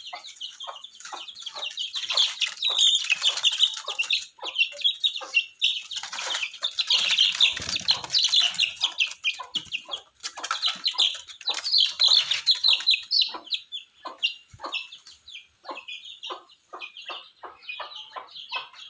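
Young chickens hatched in an incubator peeping: many short, high chirps crowding over one another, busiest in the middle and thinning out to separate peeps near the end.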